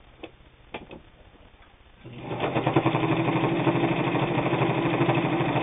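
A few light clicks, then about two seconds in a New Home Type H friction-drive sewing machine starts and runs steadily at speed with a fast, even rhythm, stitching through eight layers of heavy denim without a bit of hesitation.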